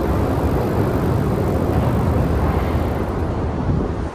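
Wind buffeting the microphone of a camera moving along on a bicycle: a loud, low rumbling rush.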